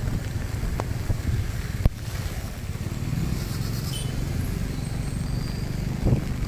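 Low, uneven rumble of a running motor vehicle, with a single sharp click about two seconds in.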